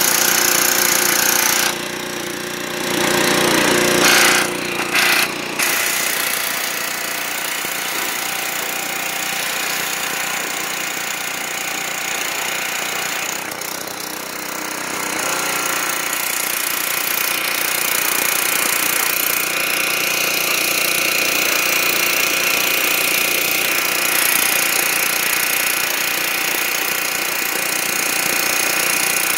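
Gas-engine Craftsman pressure washer running steadily, with the hiss of its high-pressure spray hitting the steel plow. There are a few louder surges of spray up close in the first several seconds.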